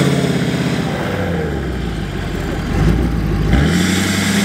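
Ford dually pickup's engine revving under load as its rear wheels spin in deep sand: the truck is stuck. The engine note sags and rises, then climbs sharply about three and a half seconds in.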